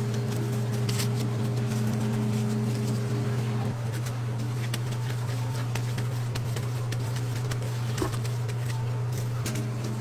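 Steady low machine hum, as of an electric motor running, with light clicks and taps scattered over it.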